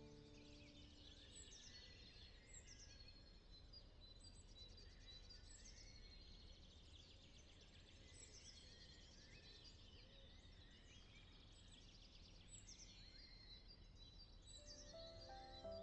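Faint birdsong: many short high chirps and downward-sliding calls over a low, steady outdoor rumble. Soft music notes come in near the end.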